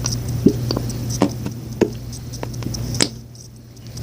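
Scattered short clicks and soft squelches of a plastic squeeze bottle as lotion is squirted out of it, over a steady low hum; the sounds stop for a moment near the end.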